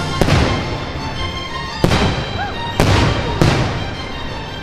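Aerial fireworks shells bursting: four sharp bangs, each dying away, with music playing beneath.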